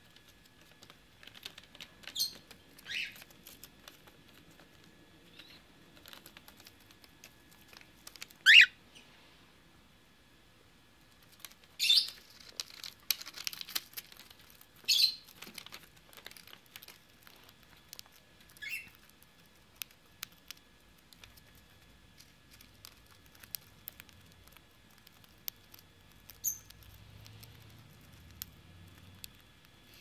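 Young cockatiel chick giving short, high squeaky calls every few seconds, the loudest a quick sweep about eight seconds in, with light scratchy rustling in between.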